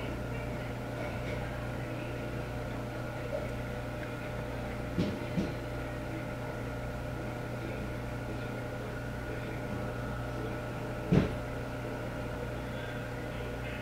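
Steady mechanical hum with several fixed tones, with two soft knocks about five seconds in and a sharper knock about eleven seconds in.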